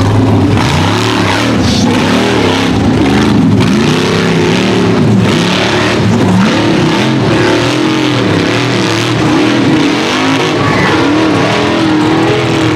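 Rock bouncer buggy's engine revving hard and repeatedly, its pitch rising and falling about once a second as the throttle is worked on and off, climbing a steep, slick mud hill.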